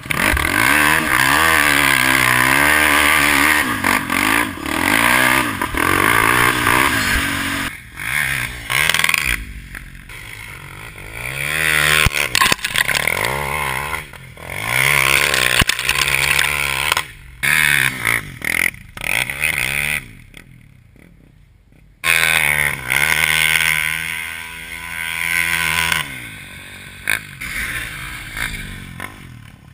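Polaris Outlaw 450 MXR quad's KTM 450 single-cylinder four-stroke engine through a Motoworks SR4 slip-on exhaust, revving up and down again and again as it is ridden. The engine sound cuts off abruptly several times, with a brief near-silent break about two-thirds of the way through.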